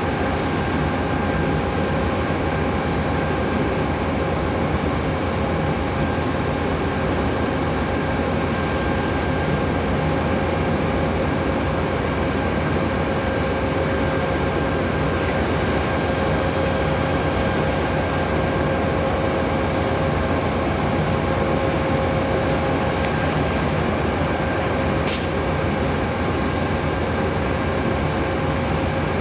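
Amtrak passenger train standing still with its locomotive and on-board equipment running: a steady hum overlaid with a constant high whine. A single sharp click near the end.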